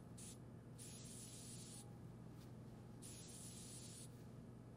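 Faint hiss of a compressed-air blow gun blowing out the ports of a small valve fitting to clear debris, in two blasts of about a second each.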